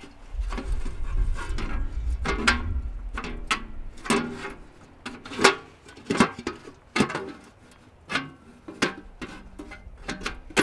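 Laser-cut aluminium panels of a flat-pack ROAM fire-box grill clinking and knocking as a side panel is worked into its notches: irregular metallic clicks and clanks, the loudest about five and a half seconds in.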